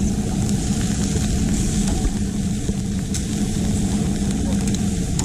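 A motor runs with a steady low hum under a light hiss, with a few faint metallic ticks from tongs working meat on a charcoal grill grate.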